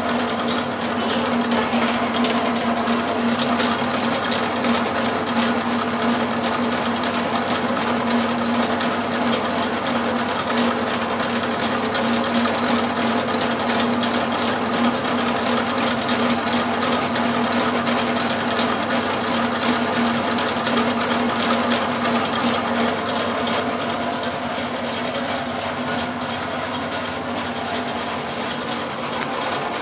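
Planetary mixer running, its motor and gearbox giving a steady hum over a fast rattle as the wire whisk turns in the stainless steel bowl of mixture.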